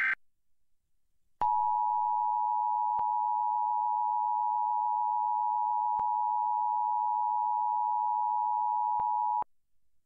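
Emergency Alert System attention signal, the steady two-tone alarm of 853 and 960 Hz, sounding for about eight seconds from about a second and a half in, then cutting off. It announces a National Weather Service tornado warning.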